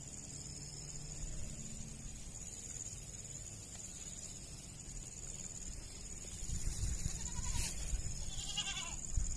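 A goat bleats near the end, after a shorter call just before, over a steady high-pitched insect drone. A low rumble rises in the second half.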